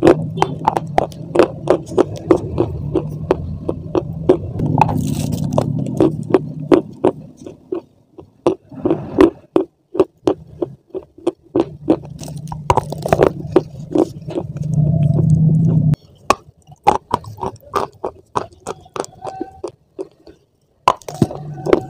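Crunching bites and chewing of dry Hyderabadi khadi, a chalky white edible clay: sharp, irregular crunches, several a second, with short gaps. A low hum runs under the crunches in stretches and cuts off suddenly about sixteen seconds in.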